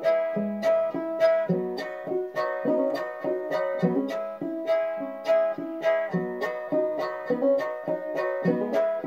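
Five-string banjo with an emu-skin head and a moose-bone bridge playing an instrumental passage: a steady run of plucked notes, with a high note ringing on above them.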